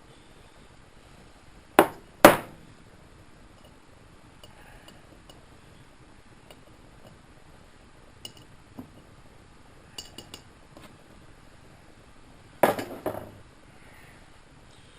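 Metal parts and hand tools clinking and clanking on a workbench. There are two sharp clanks about two seconds in, a few light clicks in the middle, and a short rattling clatter near the end.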